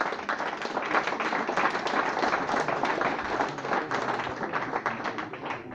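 A small group of people applauding, a dense patter of hand claps that thins out near the end.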